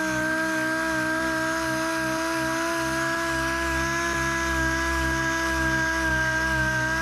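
A dual-action (DA) sander running steadily with a whine as its pad sands the paint down along the edge of a car body panel.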